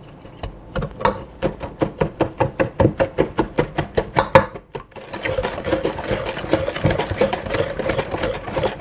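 Wire whisk beating brown sugar, eggs and oil in a stainless steel bowl, each stroke clicking against the metal in a quick, even rhythm of about five strokes a second. About halfway through, the strokes run together into faster, continuous whisking and scraping against the bowl as lumps of brown sugar are broken up.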